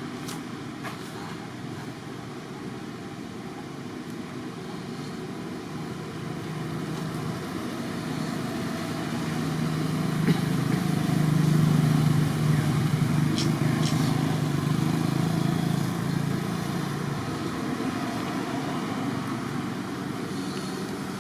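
A motor vehicle's engine passing by, its low hum swelling to a peak about halfway through and then fading again.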